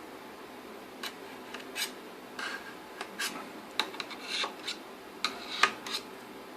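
A screwdriver working out the small screws that hold the CD player inside a BMW E46 sat-nav unit's metal casing: a string of short, irregular metal scrapes and clicks.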